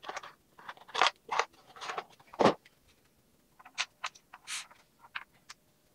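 Small plastic toy figures being handled and set down on a desktop: a string of light clicks, taps and short scrapes, the loudest about two and a half seconds in.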